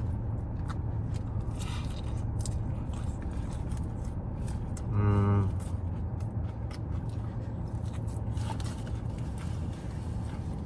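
Chewing and crunching a mouthful of salad, with a short hummed "mmm" about five seconds in, over a steady low hum.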